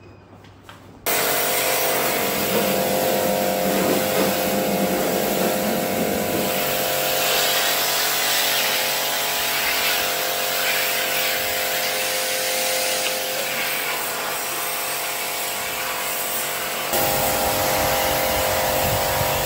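Portable electric pressure washer running, its motor humming steadily under the hiss of the water jet spraying an air conditioner's indoor coil. It starts suddenly about a second in, and the sound shifts slightly near the end.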